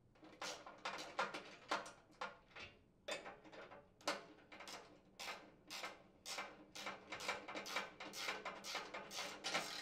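Hand ratchet with a socket tightening a mounting screw: a steady run of sharp ratchet clicks, about three a second.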